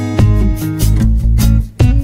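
Instrumental background music with guitar and a strong bass line; it drops out briefly near the end.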